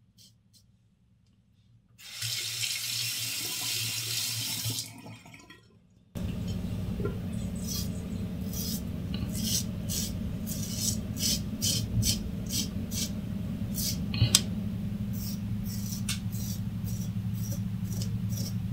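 A tap runs for about three seconds. About six seconds in, a steady low hum comes on, and a double-edge safety razor with a Shark blade scrapes through lathered stubble in short strokes, roughly one or two a second.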